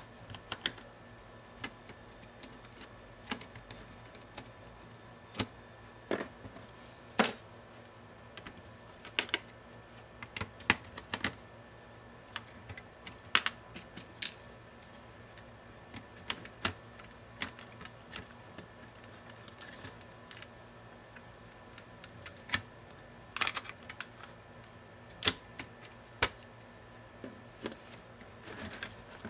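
Irregular sharp clicks and taps of small metal and plastic laptop parts being handled and worked with a small screwdriver during disassembly, a few light knocks a second at most with short gaps between.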